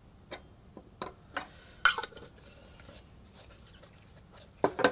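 Metal spoon clinking and scraping against a small metal cup and tin while scooping rubber powder: a few scattered clinks, the loudest about two seconds in, then a louder metallic clatter near the end.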